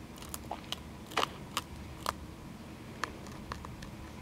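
Cottontail rabbit chewing seeds off a seed treat stick: a string of irregular sharp crunches, the loudest a little over one second and about two seconds in.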